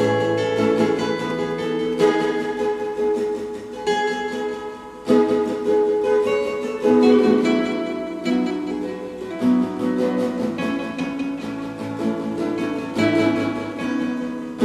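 Gentle instrumental music on a plucked string instrument. Single notes and chords are picked slowly and each is left to ring out and fade.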